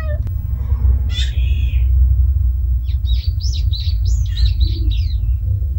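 Small birds chirping: one call about a second in, then a quick run of high chirps from about three to five seconds, over a steady low rumble.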